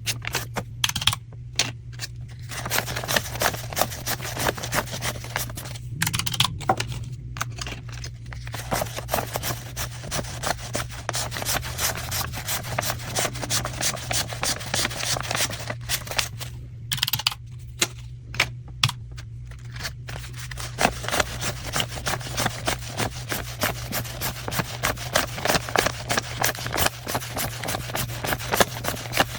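Paper banknotes being counted by hand: a rapid run of flicks and rustles as bills are handled one after another, broken by a few short pauses.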